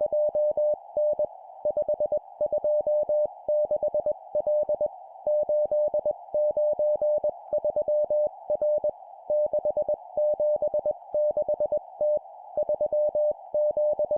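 Morse code (CW) sent at 20 words per minute as a single steady beep keyed into dots and dashes, in four-character groups of three numbers and a letter, with short pauses between groups. A steady narrow hiss runs underneath.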